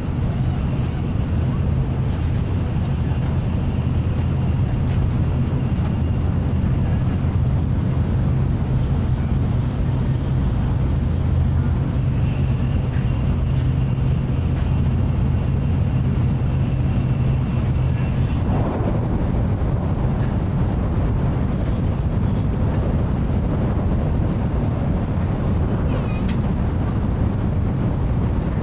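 Steady running noise inside a Tokaido Shinkansen Nozomi car at speed: a low rumble with a faint high whine that comes and goes. The low hum shifts about two-thirds of the way in.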